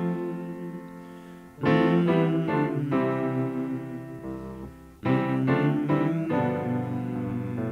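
Instrumental piano music with no singing: chords struck about 1.6 and 5 seconds in, each fading away, with single notes played between them.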